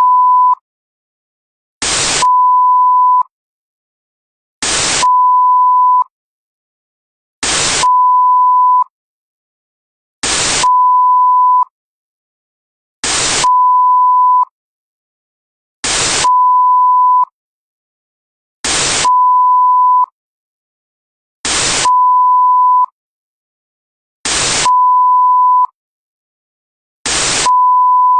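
A technical-difficulties sound effect that loops about every three seconds: a short burst of static, then a steady high beep tone lasting about a second, then a pause.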